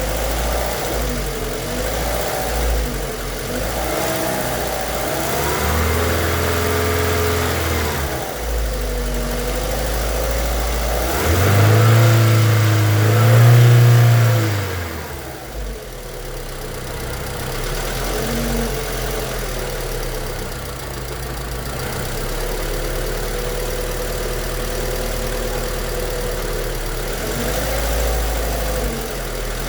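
VW Fox 1.6 four-cylinder engine idling and revved twice, about six and eleven seconds in, the second time the loudest, before settling back to idle. The engine makes a noise of looseness that the owner suspects comes from worn main bearings or a connecting rod.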